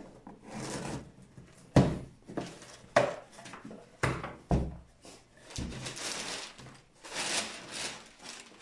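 Scissors cutting the packing tape on a cardboard shipping box, then the box flaps being pulled open: scraping and rustling cardboard broken by several sharp knocks.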